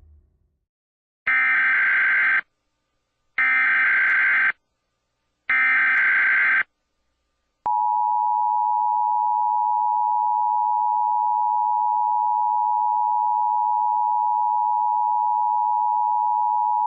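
Emergency Alert System broadcast opening. It begins with three one-second bursts of SAME header data tones, evenly spaced about two seconds apart. About eight seconds in comes the steady EAS attention signal, a two-tone beep of 853 and 960 Hz, which heralds the alert that follows.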